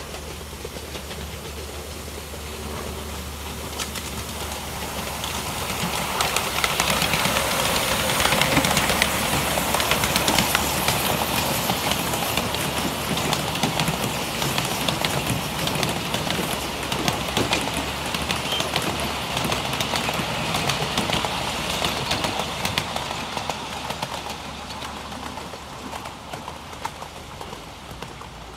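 A miniature-gauge steam railway train passing close by, its wheels clicking rapidly over the rail joints. It grows louder over the first several seconds, then slowly fades as the train moves away.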